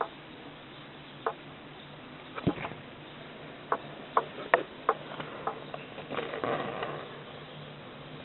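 Domestic cat chattering at birds: a string of short, sharp clicking chirps at uneven intervals, with a brief breathy stretch a little past the middle.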